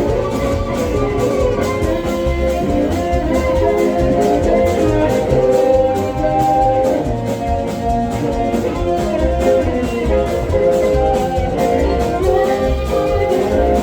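A live blues band playing an instrumental passage: guitar over a steady drum beat.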